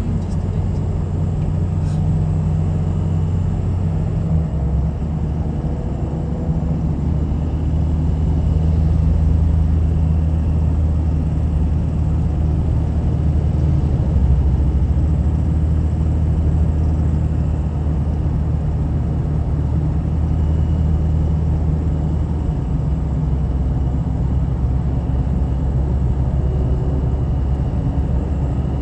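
A car driving along, its engine and road noise making a steady low drone. The engine note shifts a couple of times.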